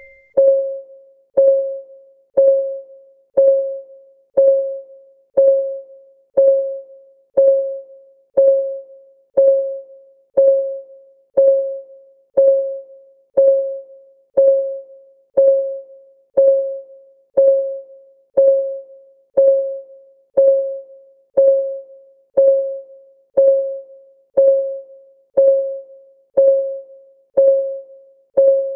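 Ticking clock sound of a countdown timer, one tick a second, steady and even. Each tick is a short note of the same pitch that fades quickly, more like a soft electronic plink than a mechanical click.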